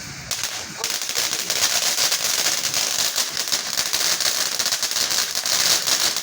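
A ground firework going off in a dense, rapid crackle of many small pops, kicking in just after the start and quickly building to a steady, fast crackling.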